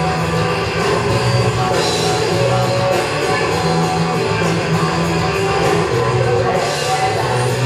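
Background rock music with distorted electric guitar and drums.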